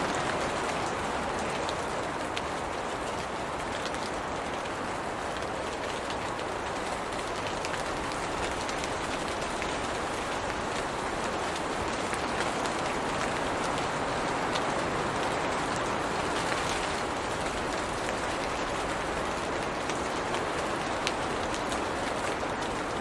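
Steady rain falling on tree leaves: a dense, even patter with single drops ticking sharper through it.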